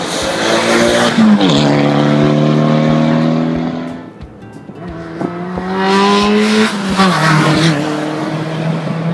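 Two rally cars passing one after the other at speed, the second a Subaru Impreza, engines running hard. Each engine note drops sharply in pitch as the car goes by, and the sound dips between the two cars.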